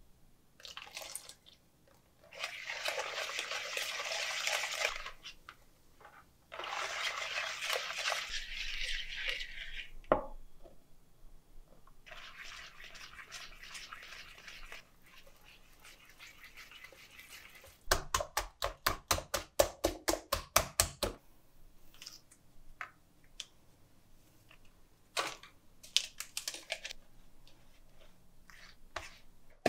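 Pancake batter being made in a mixing bowl: two pours of a few seconds each, then a softer, longer pour. About two-thirds of the way through comes a few seconds of fast, even whisking strokes against the bowl, about seven a second, followed by scattered light clinks.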